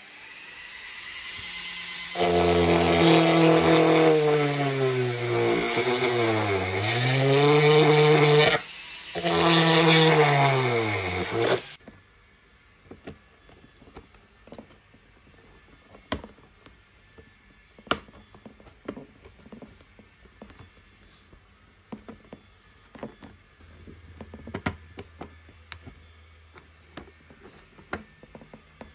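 Handheld electric power tool motor running under load, its pitch sagging twice as it bites, briefly stopping and then cutting off sharply about twelve seconds in. After that come only faint scattered clicks and taps of handling.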